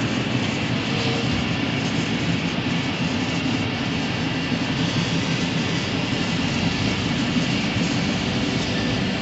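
DoAll Model 60-3 vertical contour bandsaw running steadily, its motor and drive humming with the blade turning, no cutting.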